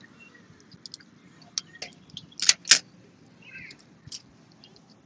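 Boiled crawfish shells cracking and snapping as they are broken and peeled by hand: a scattered series of sharp clicks, the loudest two close together about two and a half seconds in.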